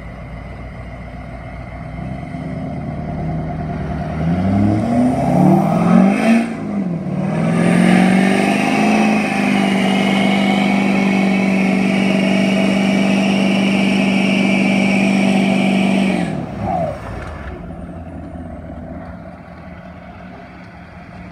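Ford pickup truck's engine revving under load as it pulls a stuck boat up a muddy bank by chain. The revs climb twice a few seconds in, then hold high and steady for about eight seconds before dropping away.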